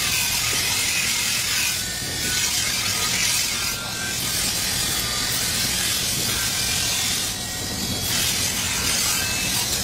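Damascus steel sword blade ground against a bench grinder's abrasive wheel: a steady high grinding hiss over the low hum of the grinder's motor, dipping briefly a few times.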